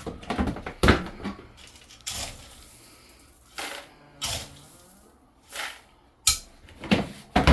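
Dry feed being scooped from a bin: a scoop knocking and scraping against the container in a string of separate clatters, with a short rush of poured grain about two seconds in.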